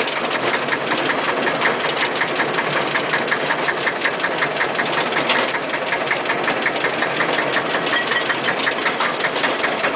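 Small engine of a narrow-gauge rail vehicle running steadily under way, with a rapid, even knocking beat.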